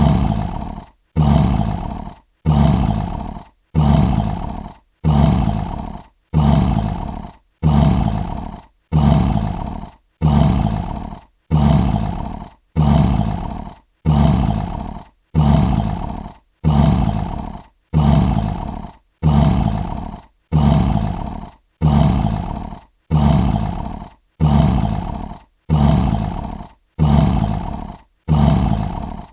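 Lion roar sound effect: short, deep roaring grunts repeating at an even pace of about one every 1.3 seconds, each starting loud and fading away before the next, all alike.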